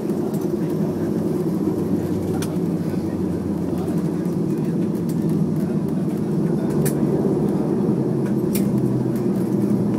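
Steady low rumble of a Boeing 737-300's engines and airflow heard inside the passenger cabin as the airliner taxis after landing, with a few faint clicks.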